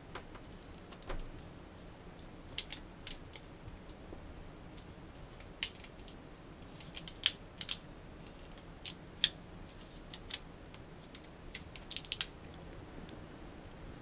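Scattered light clicks and taps of a hard drive and its mounting bracket being handled and fitted together, at an irregular pace.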